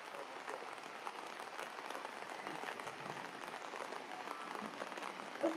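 Steady heavy rain pattering, a dense hiss of fine drops, with one brief louder sound just before the end.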